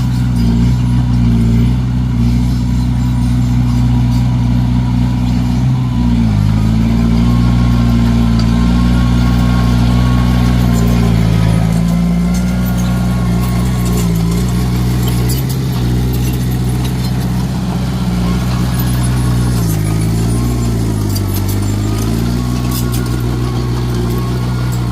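Komatsu D21A bulldozer's diesel engine running steadily. Its pitch sags briefly and recovers a few times.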